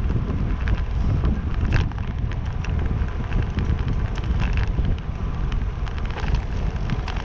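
Wind rushing over the microphone of a handlebar-mounted camera on a moving road bicycle, heard as a steady low rumble, with a couple of sharp ticks from the bike.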